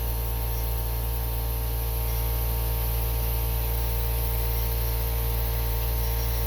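Air compressor running steadily with a low hum, and air hissing through the hose into a tractor tire while its bead is being reseated on the rim with a ratchet strap.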